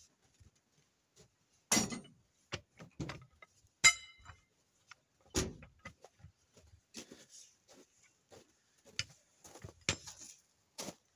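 Scattered knocks and clanks of metal tools and parts being handled during tyre work, with a loud ringing metallic clang about four seconds in.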